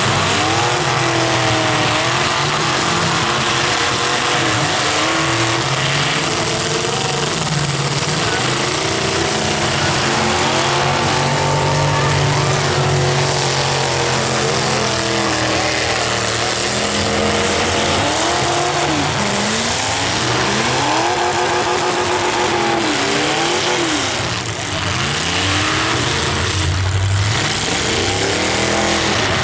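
Several demolition derby cars' engines revving up and down at once, with their pitches rising and falling over one another in a loud, continuous din.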